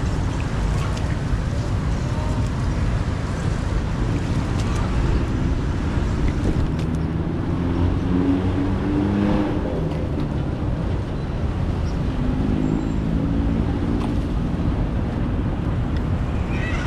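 Steady rushing noise of floodwater, with wind buffeting the microphone.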